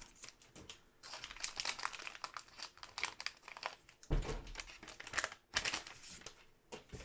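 Crinkling and crackling of trading-card pack wrappers and cards being handled, irregular and close up, with a soft bump about four seconds in.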